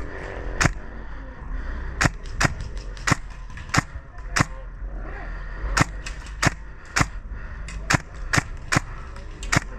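Airsoft guns firing single shots: about thirteen sharp cracks at irregular intervals, sometimes two in quick succession.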